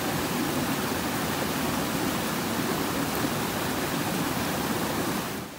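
Steady rush of Dudhsagar Falls in heavy monsoon flow, an even wash of falling water. It drops away suddenly near the end.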